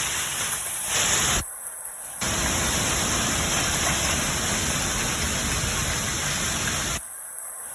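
Strong wind and hail storm: a dense, steady rush of noise, loud on the microphone, with the lower sound cutting out abruptly for a moment twice.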